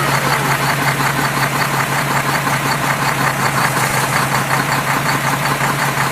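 Engine idling steadily, with a fast, even knocking pulse over a low hum.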